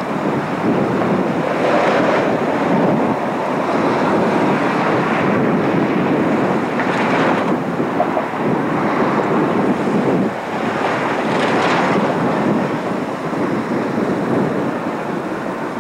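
Storm wind buffeting the microphone: a loud, steady rushing that surges in gusts about 2, 7 and 11 seconds in.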